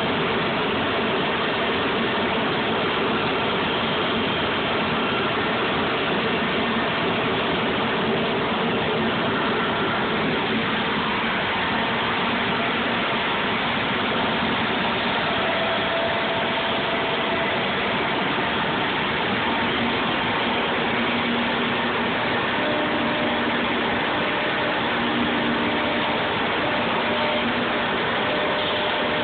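Large CNC router machining center running: a steady, loud mechanical whir with faint tones that shift in pitch now and then.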